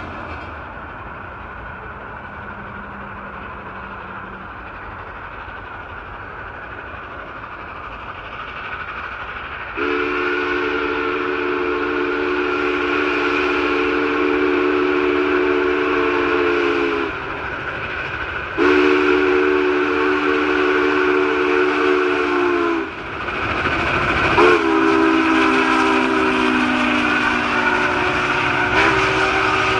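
Union Pacific No. 844 steam locomotive blowing its chime steam whistle as it approaches and passes, over the steady rumble of the train. Two long blasts about seven and four seconds long come about ten seconds in, then a third held blast that drops slightly in pitch as the engine goes by.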